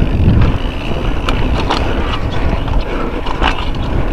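Mountain bike being ridden down a dirt trail, heard through an action camera: a steady rumble of wind on the microphone and tyres on the ground, with scattered clicks and knocks as the bike rattles over bumps.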